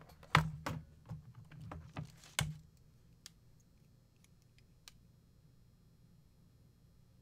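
Handling noise from a steel vise screw and measuring tools: a cluster of knocks and taps, with two louder knocks about a third of a second and two and a half seconds in, then a few faint ticks.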